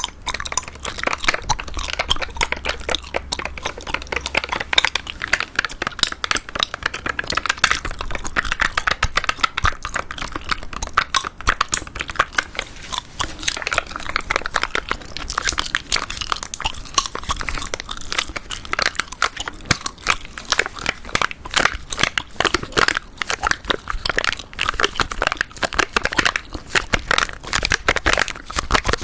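Close-miked chewing gum being chewed, a dense unbroken run of quick clicks and smacks.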